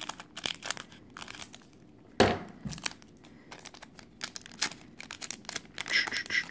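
Foil wrapper of a Pokémon Gym Challenge booster pack crinkling and crackling as it is snipped with scissors and pulled open by hand, with one louder sharp crackle about two seconds in.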